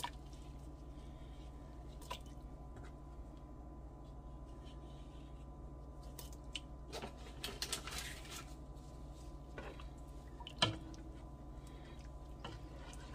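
Soft plops and small splashes as squares of dumpling dough are dropped one at a time into a pot of hot chicken broth, with one louder knock near the end, over a steady low hum.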